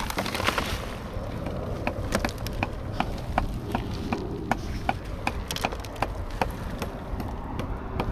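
Irregular sharp clicks and knocks from tile work on a roof, roughly one or two a second, over a low steady rumble.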